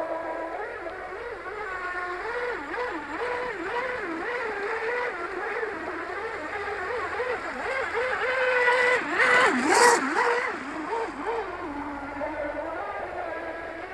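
3200KV brushless motor of an RC hydroplane boat, running on a 14.4 V LiPo, whining steadily as the boat runs across the water. Its pitch wavers up and down over and over. It grows louder toward about ten seconds in, where the pitch dips sharply and a short hiss cuts through, then settles back.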